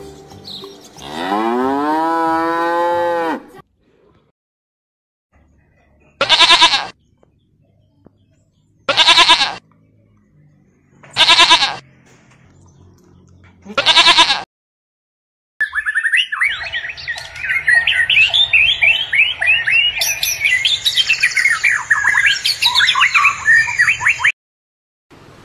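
A cow moos once, a long call that rises in pitch at the start and then holds. A sheep then bleats four times, a couple of seconds apart. Last, a male common chaffinch sings a fast run of chirping notes for about eight seconds.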